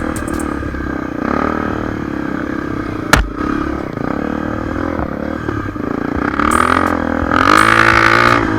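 Dirt bike engine running, with a single sharp knock about three seconds in. Near the end the engine revs up twice, getting louder.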